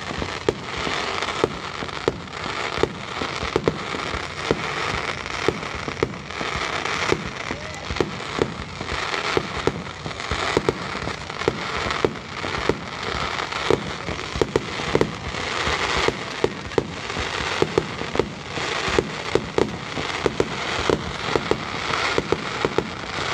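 A fireworks display heard close to the launch site: a dense barrage of sharp bangs, several a second, over continuous crackling from the bursting shells.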